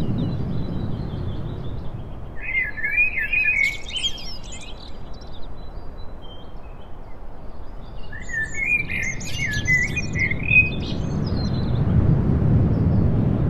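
Small songbirds chirping in two short bursts of quick, twittering song, about two seconds in and again about eight seconds in, over a steady low rushing noise that swells near the start and the end.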